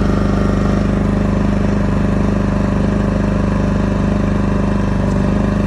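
WEN 3600-watt portable gasoline generator running at a steady speed, freshly started and running smoothly.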